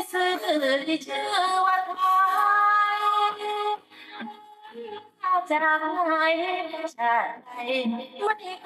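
A woman singing into a microphone, holding long notes that waver in pitch. Her song breaks off briefly about four seconds in, then resumes.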